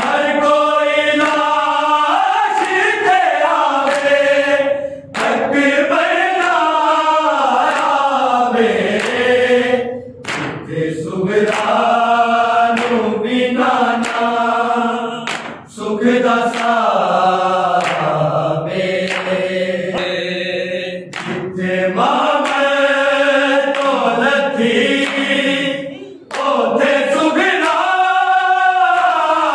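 A group of men singing a Punjabi noha, a Shia lament, unaccompanied and in chorus. The voices are held in long phrases with brief breaks between them.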